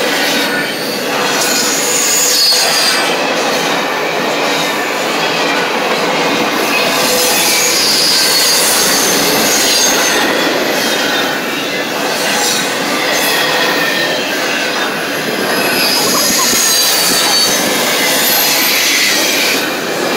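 Double-stack intermodal train's container well cars rolling past close by: a steady loud rumble of wheels on rail, with short high-pitched wheel squeals coming and going.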